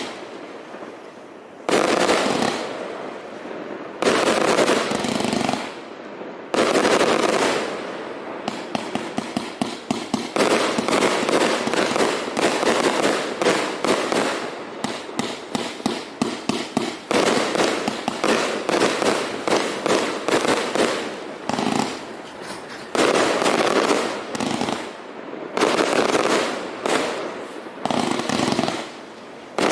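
A 269-shot 25 mm and 30 mm compound fireworks cake firing: loud volleys of shots with crackling bursts, some stretches in rapid fire, coming in waves with short lulls between.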